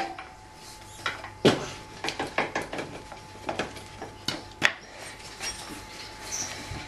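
Scattered metallic clinks and knocks of parts and tools being handled at a dirt bike's front wheel hub, the loudest about one and a half seconds in, over a faint steady hum.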